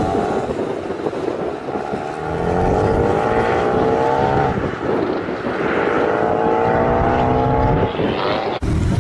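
Car engine accelerating hard through the gears, its pitch climbing in two long pulls and dropping back at each gear change. The sound cuts off abruptly near the end.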